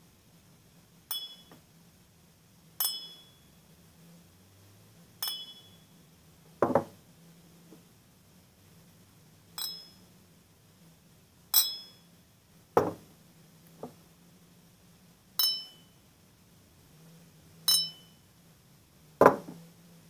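Soviet Gus-Khrustalny cut-crystal stemmed glasses clinked together about ten times, most strikes leaving a short, clear high ring. Three of the strikes are louder and dull, with no ring after them.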